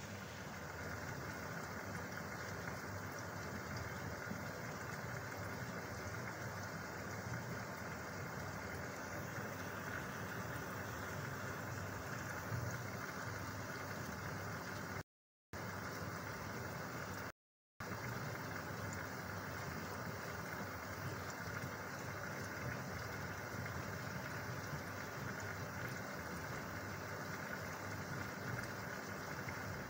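Steady low hum of aquarium equipment with a faint fizz of moving water, cutting out twice for a moment about halfway.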